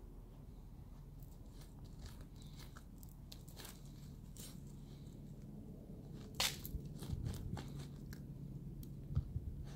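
Siberian huskies nosing and pawing in loose soil and gravel: scattered soft crunches and scrapes, with one sharper click about six and a half seconds in and louder scuffling near the end.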